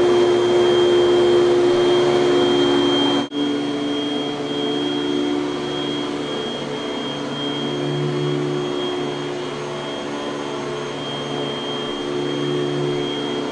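A 1984 Panasonic Jet-Flo MC-5116 bagged upright vacuum cleaner running steadily, its motor giving a constant high whine. About three seconds in the sound breaks off for an instant, then resumes slightly quieter.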